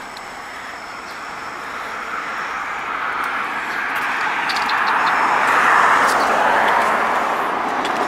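A car driving along the road beside the sidewalk, its tyre and engine noise a steady rush that grows louder as it approaches, loudest about six seconds in.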